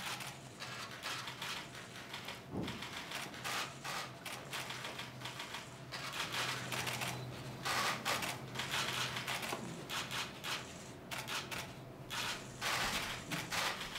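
Many rapid, irregular mechanical clicks overlapping throughout: a bank of press camera shutters firing, with a faint steady hum underneath.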